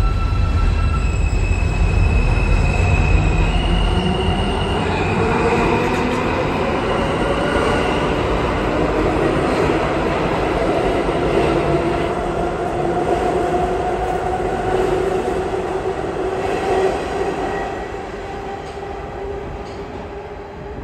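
R160 subway train pulling out of the station: its motors give a whine that steps up in pitch, then climbs steadily as it accelerates, over the rumble of its wheels on the rails. It fades over the last few seconds as the train leaves.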